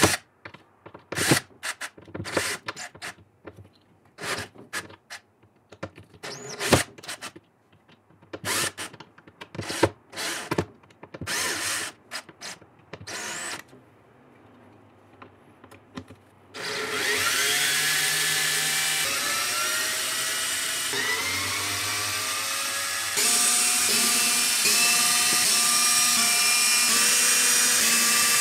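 DeWalt cordless drill backing screws out of a wooden cabinet board. First come scattered clicks and short bursts of the drill with screws being handled; then, about two-thirds of the way in, the drill runs steadily, its motor whine rising in pitch as it spins up several times, louder again near the end.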